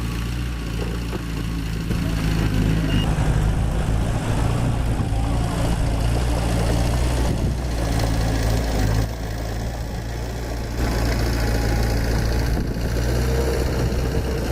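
Diesel engine of heavy construction machinery running steadily, a deep engine note that grows louder about two seconds in, eases off around nine seconds and picks up again near eleven.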